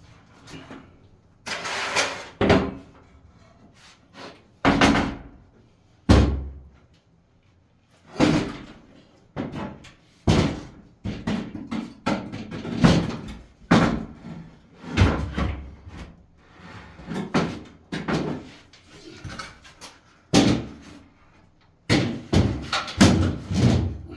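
A string of knocks, bangs and scrapes from renovation handwork, with many sharp impacts about every second or two, some followed by short scraping or rattling.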